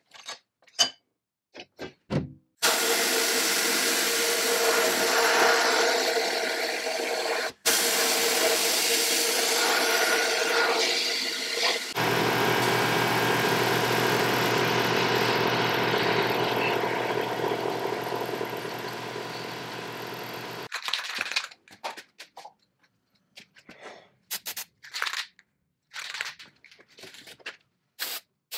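Compressed-air abrasive blasting of small cast-iron parts in a blast cabinet: a long, loud, steady hiss with a low hum, broken by two sudden cuts. Near the end come short separate bursts of spray paint.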